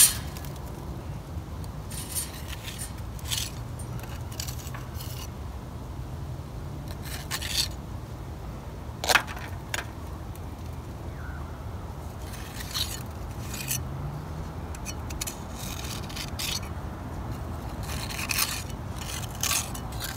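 Small steel mason's pointing tool scraping wet mortar into a brick joint, in short irregular strokes of metal on mortar and brick.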